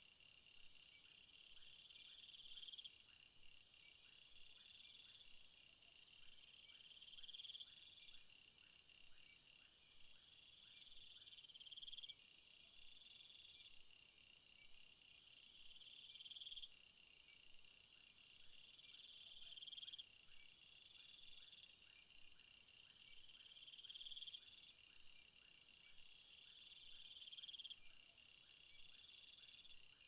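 Faint forest ambience of insects chirring. A steady high buzzing swells and cuts off about every four seconds, over fainter, higher pulsed chirps.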